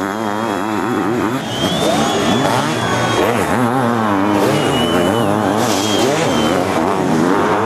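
Several racing sidecar motocross outfits' engines revving hard together, their pitch rising and falling again and again as the riders work the throttle.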